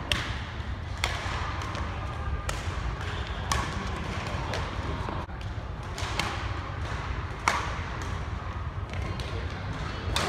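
Badminton rally: sharp racket strikes on the shuttlecock, one roughly every one to one and a half seconds, over the low hum of the hall.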